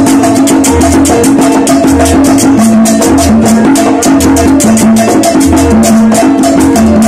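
Live charanga band playing salsa, loud: congas, a fast, even high rhythm of shaken or scraped percussion, a keyboard repeating a short figure and a bass line cycling underneath.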